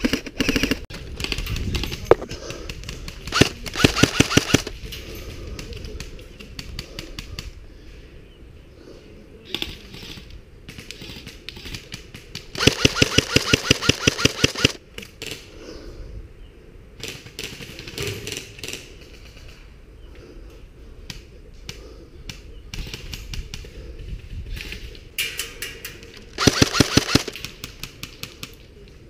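Airsoft electric rifle firing three rapid full-auto bursts of sharp, evenly spaced cracks: a short one a few seconds in, a longer one of about two seconds near the middle, and a short one near the end, with scattered single shots between.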